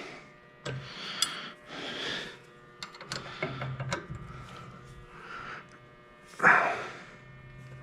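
Hand work with a wrench on a tight brake line fitting: scattered sharp metal clicks and scraping handling noises, with a louder burst about six and a half seconds in.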